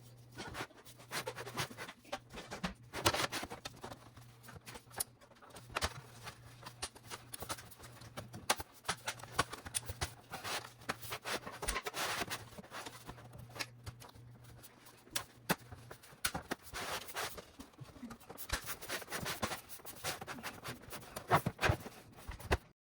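Scattered clicks, taps and rustles from small hard objects being handled, with a steady low hum that stops about two-thirds of the way through.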